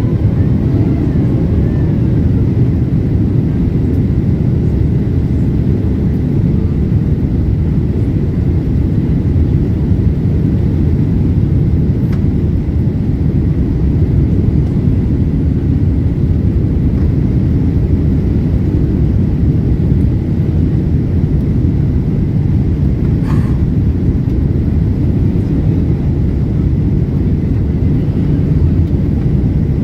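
Steady low rumble of a Boeing 767 airliner heard from inside the passenger cabin: jet engines and airflow, even throughout, with one faint click about twenty-three seconds in.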